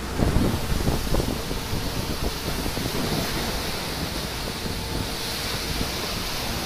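Broken sea ice grinding and cracking against a vessel's hull as it breaks through the ice: a dense run of irregular crunches and knocks over a steady rush of churned water, with wind on the microphone.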